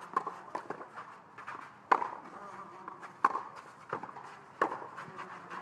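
Tennis rally: a racket strikes the ball with a sharp pop about two seconds in, then twice more, about a second and a half apart. Fainter ticks fall between the strikes.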